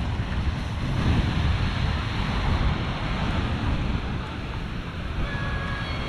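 Small surf breaking on a sandy shore, with wind buffeting the microphone in a low rumble. A faint high steady tone comes in near the end.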